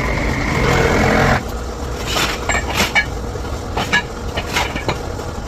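A steady low hum under a series of sharp metallic clinks and knocks, about six of them spread over a few seconds. At the start a louder, noisier sound runs for about a second and a half and then cuts off suddenly.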